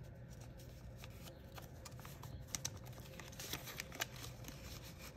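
Faint rustling and small clicks of paper dollar bills being handled and slipped into a cash envelope in a ring binder.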